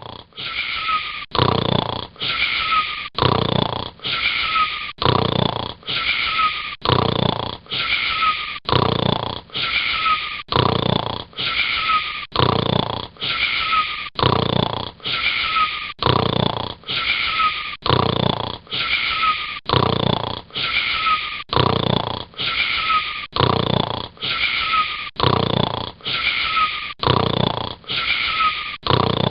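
Steady, even snoring, about one snore a second, with a short wheezy whistle in each breath.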